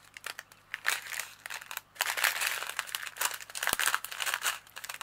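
Small plastic packets of diamond painting drills crinkling as they are handled, with a sharp click a little before the end. The crinkling is heavier from about two seconds in.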